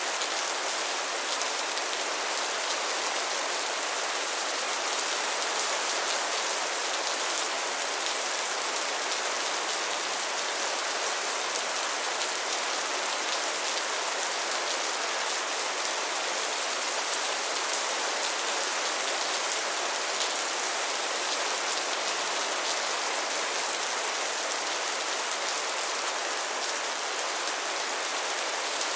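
Steady rain falling, an even hiss of many drops hitting a surface, with scattered sharper drop ticks.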